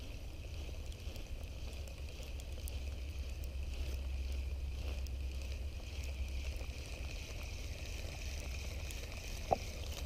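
Wind rumbling steadily on the microphone under a faint hiss, with one sharp click near the end.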